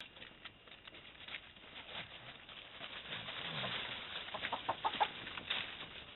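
A hen clucking and giving several short squawks as a puppy grabs and tugs at her, with scuffling in dry fallen leaves.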